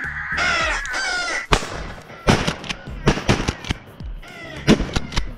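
Crows cawing, then, starting about a second and a half in, a rapid string of shotgun shots, several within about three seconds.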